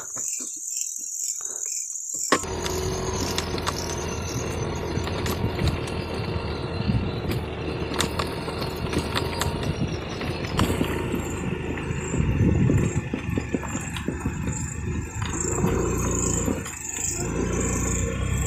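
Motorcycle engine running while riding over a rough, bumpy dirt track, with rattles and knocks from the bumps. The sound comes in about two seconds in, after a stretch of thin hiss.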